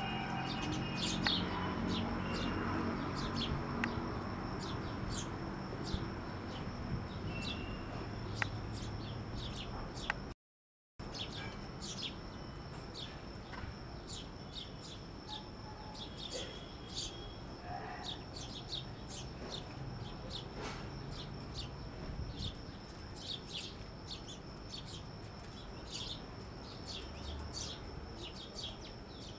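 Many small birds chirping, short high chirps coming thick and fast over a steady high-pitched whine. The sound cuts out completely for about half a second around ten seconds in.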